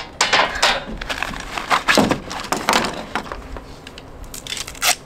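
Nylon stuff sack rustling and lightweight metal frame parts and poles clattering as folding camping gear is unpacked by hand, with one sharp clack near the end.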